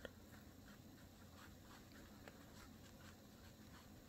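Faint soft scratching of a small paintbrush stroking paint onto canvas in short, irregular strokes, with a light click near the start.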